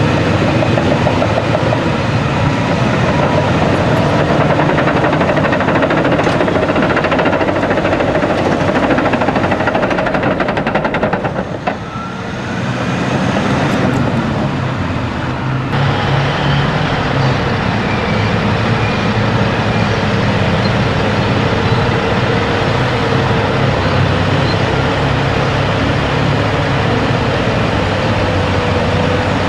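Heavy Caterpillar earthmoving machines at work: the diesel engines of a D10R crawler dozer pushing a 631E wheel tractor-scraper, then of the dozer and a motor grader, running under load. The sound dips briefly about twelve seconds in and changes character again a few seconds later.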